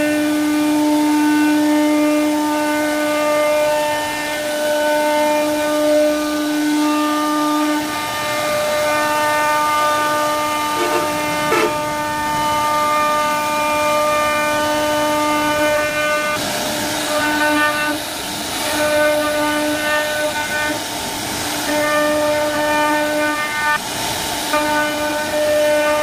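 CNC router spindle running at a steady high whine that holds one pitch, as its bit carves into a wooden door panel. In the second half the hiss of the bit cutting wood rises in short surges over the whine.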